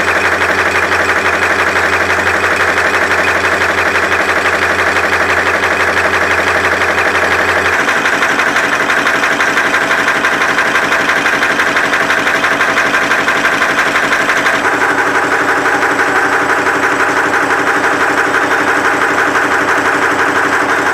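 Automatic wire nail making machine running: a loud, fast, even mechanical clatter from its repeating strokes, shifting slightly in tone twice.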